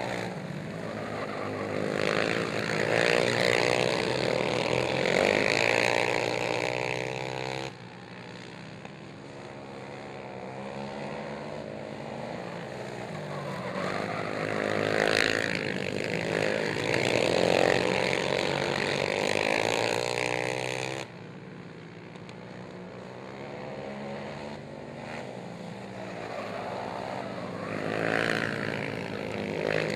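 Racing ATV engines revving hard and backing off through the turns, the pitch rising and falling as the quads pass. The sound breaks off abruptly twice and picks up again.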